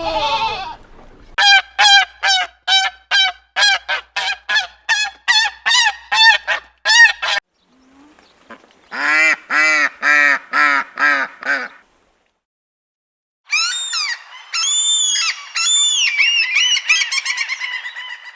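Geese honking in three bursts of short, rapid calls with pauses between them: a quick run of about sixteen honks, then a lower-pitched run, then a higher, denser run near the end.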